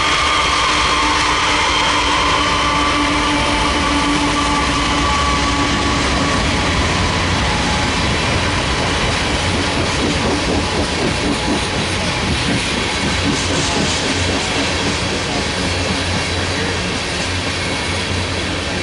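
A long freight train of loaded oil tank cars rolling past at speed, a steady loud rumble and clatter of wheels on the rails. Over the first several seconds a steady whine from the passing locomotives fades away.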